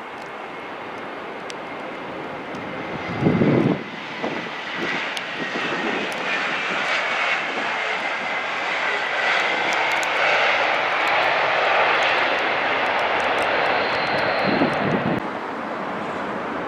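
Jet airliner engines running, growing louder over several seconds to a peak and then easing near the end, with a faint high whine. A brief thump about three seconds in and another shortly before the end.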